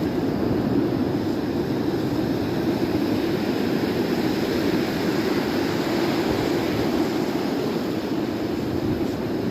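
Steady rushing noise of breaking surf and wind, even throughout with no separate knocks or clicks.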